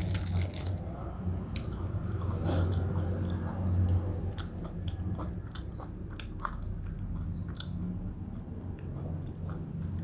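A person chewing and biting food close to the microphone: irregular small crunches and wet mouth clicks while eating spicy pork salad with sticky rice. A steady low hum runs underneath.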